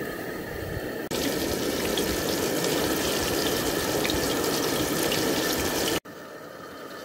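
Water running steadily, like a tap filling a sink or pot, louder from about a second in and cutting abruptly to a quieter water sound near the end.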